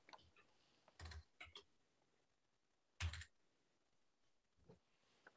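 Faint, scattered computer keyboard keystrokes: a few quick taps at a time with pauses between, the loudest about three seconds in.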